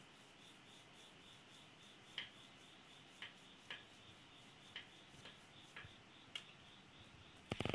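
Pencil lead touching and stroking drawing paper: a few short, faint scratchy taps spaced irregularly, over a faint fast even ticking of about four to five ticks a second. A louder cluster of knocks starts right at the end.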